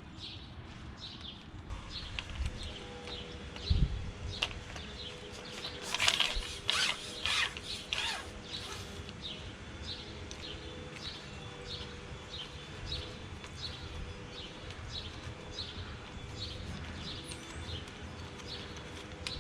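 A clamp is slid and worked onto a water-fed pole section, with a few scraping strokes a third of the way in. Behind it a bird chirps over and over, about twice a second, over a faint steady hum.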